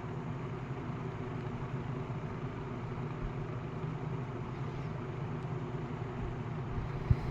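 A 1950s Kenmore automatic box fan with a GE motor running steadily: an even motor hum under the rush of air from the blades. A few low thumps come near the end.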